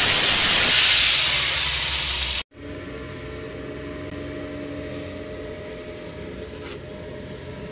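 Angle grinder with a cut-off disc cutting a steel bar held in a vise, a loud hissing screech; the cutting eases off under a second in and the grinder runs on more quietly before the sound cuts off abruptly about two and a half seconds in. After that only a faint steady hum remains.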